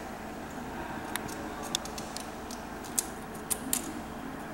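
A handful of light clicks from a steel feeler gauge set being handled against a straight edge on a bare engine block deck while the deck is checked for flatness, two of them close together near the end, over a steady background hum.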